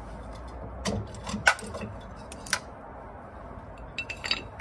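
Metal clinks and taps of Morris Minor rear drum-brake springs and shoe parts being handled and set down on a concrete floor: a few separate sharp clicks in the first half, then a quick cluster of clinks near the end.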